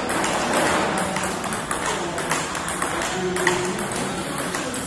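Table-tennis rally: the plastic ball clicking off the paddles and the table in a steady run of sharp knocks, about two a second, with one side blocking on OX short-pimple rubber. Background music plays underneath.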